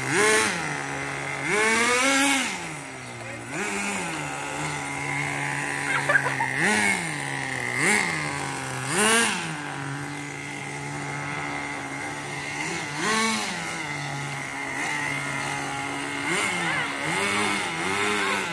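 Radio-controlled buggy's small two-stroke engine idling steadily and revving up sharply in short bursts, about eight or nine times, dropping back to idle after each.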